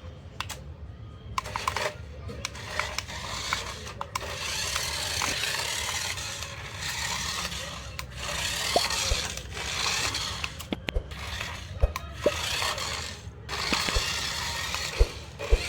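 Hands unpacking and handling a toy RC tractor and its packaging: repeated rustling and scraping, with small sharp clicks and knocks of plastic parts.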